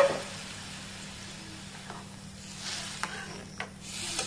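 Dal cooking in hot water in a black kadai, a soft steady sizzle and bubble. A sharp clink of the steel ladle against the pan right at the start, then a few light taps as it is stirred.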